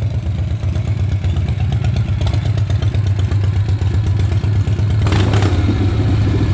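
1978 Harley-Davidson Shovelhead V-twin, fitted with an S&S Super E carburettor, running steadily with an even pulsing beat, with a short sharp noisy burst about five seconds in.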